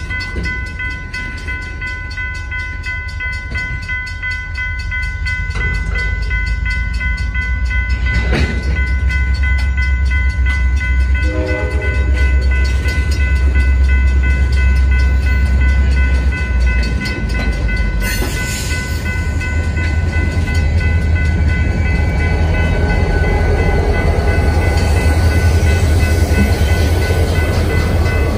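Freight train passing close at a grade crossing: freight cars rumbling and clattering along the rails, with the crossing signal's bell sounding steadily over it. A CSX diesel locomotive comes by near the end, adding more engine sound.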